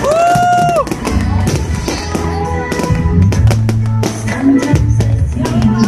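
Loud music with a drum kit and a steady bass line, with many sharp cracks throughout. A pitched tone glides up and then down in the first second.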